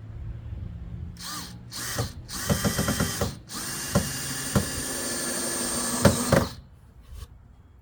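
Power drill running on wood in two short trigger bursts, then a brief run and a steady run of about three seconds with a few sharp clicks, before cutting off suddenly. This is typical of pre-drilling or driving screws into boards.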